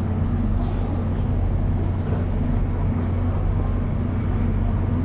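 Steady low mechanical drone with a deep, even hum.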